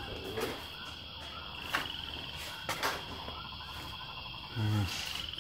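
Calling insects outdoors: a steady high drone with two short pulsed trills, about two seconds in and near the end, and a few sharp clicks in between.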